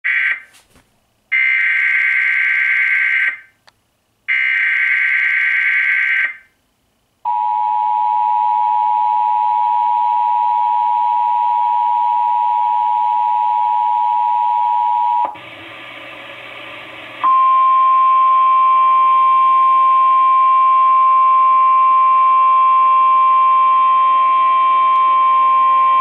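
Emergency Alert System test tones through a TV speaker. First come the three SAME header data bursts, each a harsh digital screech of about two seconds. Then the two-tone attention signal is held for about eight seconds, and after a short break a single steady tone, the 1050 Hz National Weather Service alert tone, sounds for about nine seconds.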